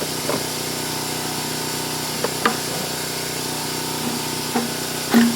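Steady mechanical hum with a few light clicks and clinks of parts and hand tools as the ATV's carburetor and fuel-system parts are fitted back on.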